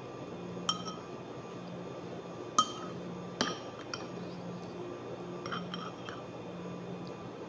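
Metal spoon clinking against a ceramic soup bowl several times, the loudest strike about two and a half seconds in.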